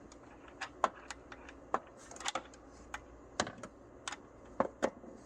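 Irregular sharp metallic clicks and taps, about a dozen, from a ratchet, extension and T60 Torx socket being handled and fitted together.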